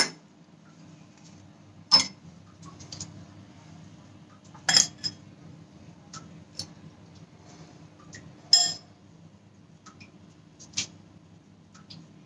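Metal spoon clinking against a glass bowl while stuffing is scooped out, five sharp clinks a couple of seconds apart with light ticks between, over a faint steady hum.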